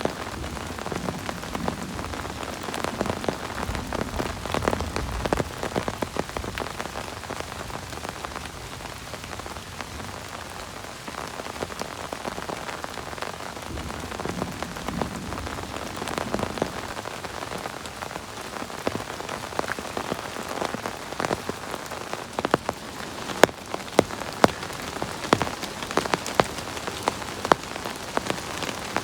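Heavy rain falling steadily, many separate drops striking a surface, with several sharper, louder drop strikes in the last few seconds.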